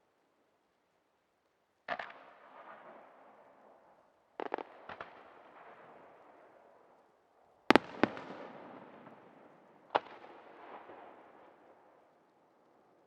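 Aerial firework shells bursting in the night sky: a series of sharp bangs, some in quick pairs, the loudest pair about eight seconds in, each followed by a rolling echo that fades over a second or two.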